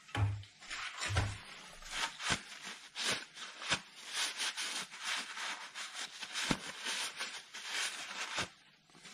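A cloth rag rubbing and wiping over a car's metal oil sump in quick, irregular strokes, with a couple of dull knocks in the first second and a half.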